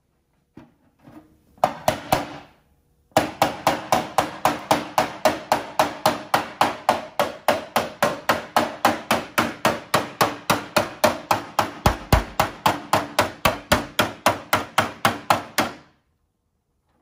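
Small hammer tapping on a motorcycle's tank cover to shape it. A few separate blows come first, then a steady run of about four quick strikes a second that stops shortly before the end.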